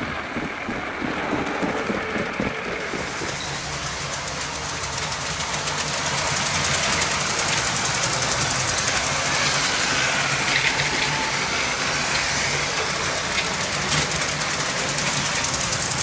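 Electric LEGO toy trains running on plastic track: a steady motor hum with the rattle and fine clicking of wheels over the rails. About three seconds in the sound turns brighter and more rattly.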